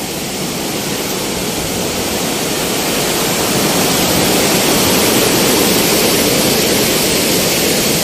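Fast-flowing mountain water rushing, a steady, even sound that grows louder over the first few seconds and then holds.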